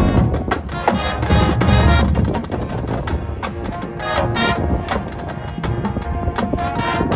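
High school marching band playing: brass chords over drums, with a heavy bass for the first couple of seconds and then softer.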